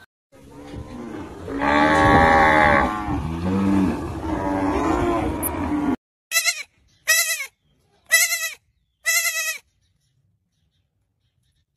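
A cow mooing: a long, low, drawn-out call. About six seconds in, goats bleat four short, quavering times, about one a second.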